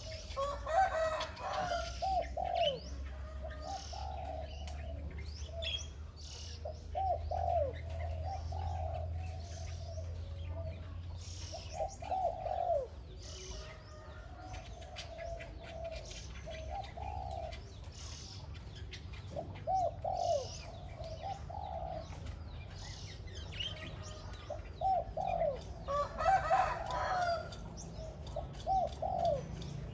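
Spotted dove cooing in short repeated phrases every few seconds, over thin chirps of small birds and a low steady hum.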